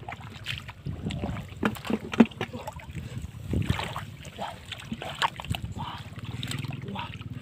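Hands and a woven bamboo scoop basket splashing and sloshing through shallow muddy water in a ditch, in irregular slaps and splashes, the sharpest one a little over two seconds in.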